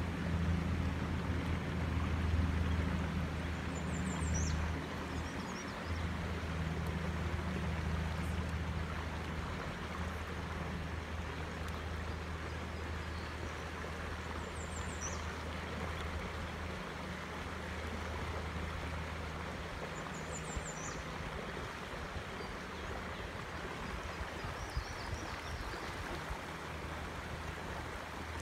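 Clear, shallow trout stream running over rocks: a steady rush of water, with a low rumble underneath that weakens about two-thirds of the way through. A bird gives a short high call a few times.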